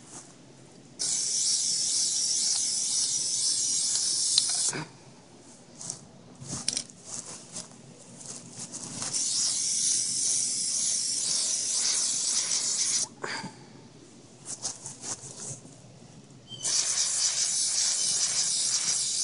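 Plasti Dip aerosol can spraying a coat of rubber coating onto BMW kidney grilles, in three long hisses of three to four seconds each with short pauses between.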